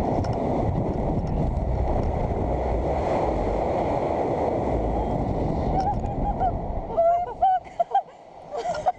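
Loud wind rushing over an action camera's microphone as two jumpers fall and swing on a tandem canyon swing. From about six seconds in the wind eases and the jumpers give short high yells and whoops.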